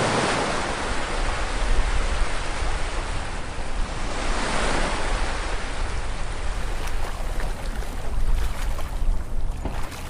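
Rushing river water: a loud, even wash of noise with a low rumble underneath, swelling near the start and again about four and a half seconds in.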